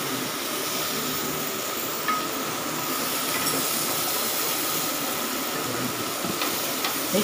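Chicken and zucchini slices sizzling on a grill pan over a portable gas stove: a steady hiss, with a brief click about two seconds in.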